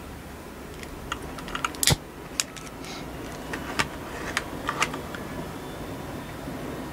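A brass alcohol stove is lit with a long-nosed lighter: a series of light clicks and knocks over a few seconds, the sharpest about two seconds in. From about three seconds in, the stove's alcohol flame burns with a steady soft rush.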